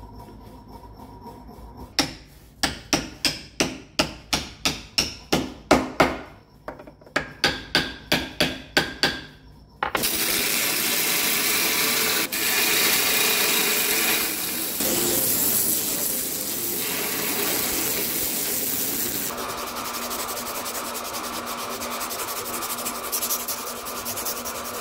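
A run of sharp knocks, about two to three a second, then a bandsaw running steadily as it trims a knife's handle scales flush with the tang. Near the end the sound changes to a fast rasping as an abrasive strip is worked back and forth over the burlap micarta handle.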